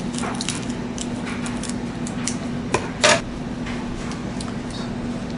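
Crinkly foil wrapper of a trading-card pack being handled, a string of small crackles and clicks with a louder crackle about three seconds in.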